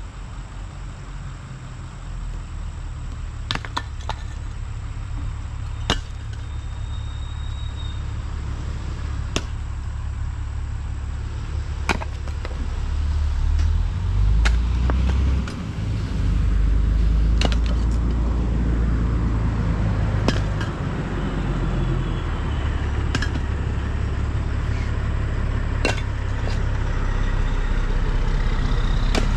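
Earth-moving machine's engine working under load, a steady low rumble that gets louder about halfway through, with sharp cracks and clanks every few seconds.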